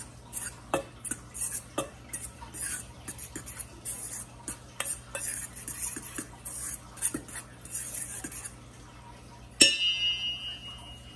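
A metal utensil stirring dry flour and baking powder in a stainless steel mixing bowl: quick, uneven scrapes and light clinks against the bowl. Near the end the utensil strikes the bowl harder and the steel rings briefly.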